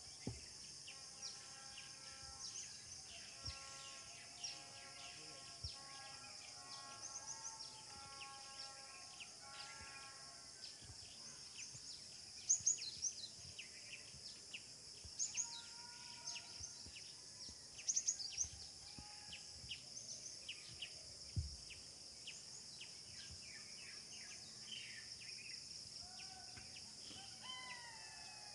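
Rural outdoor ambience: a steady high insect drone with many scattered bird chirps and calls. The sharpest chirps come about 12 and 18 seconds in, and a few longer pitched calls can be heard early on and near the end.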